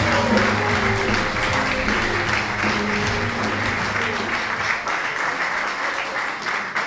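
Audience applauding while recorded music plays. The music fades out a little past halfway while the clapping goes on.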